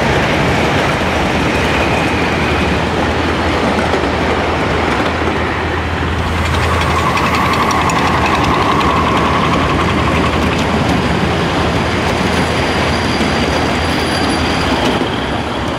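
Miniature ride-on live-steam trains rolling past: a steady rumble of wheels on rail. In the middle of the pass come rapid clicking over the rail joints and a wheel squeal.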